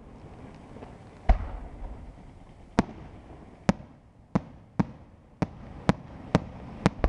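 Aerial firework shells bursting: one heavy boom about a second in, then eight sharp bangs that come faster and faster toward the end.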